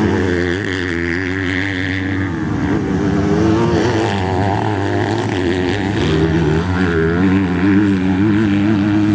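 Motocross bike engines revving hard, with several overlapping engine notes rising and falling as the throttle opens and closes.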